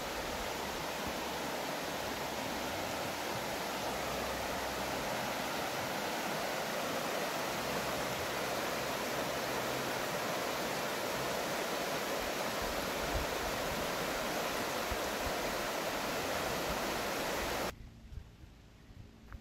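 Shallow river rushing over rocks: a steady hiss of running water that cuts off suddenly near the end.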